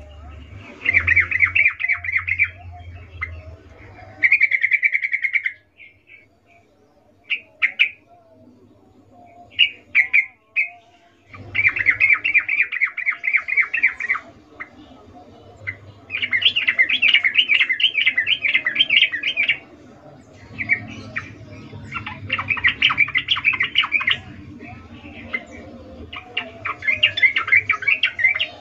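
Yellow-vented bulbul (trucukan) giving bursts of rapid chattering notes, six bursts of one to three seconds each with short single calls between, over a faint low hum. This is the female's breeding-condition call that draws males.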